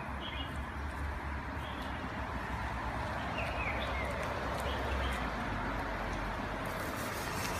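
10-inch electric scooter with a brushless motor being ridden: a steady noise of tyres rolling on pavement, with the motor itself hardly heard. A few faint bird chirps come about three seconds in.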